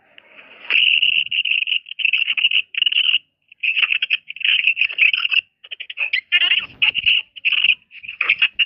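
A sneeze recording played back sped up many times over, turned into high-pitched, rapid chirping chatter that comes in short bursts with brief gaps.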